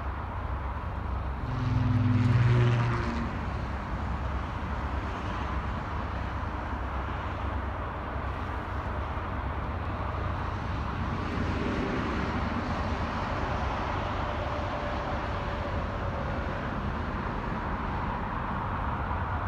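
Distant diesel locomotives droning steadily as a train approaches down the line, with a brief louder swell carrying a low hum about two seconds in.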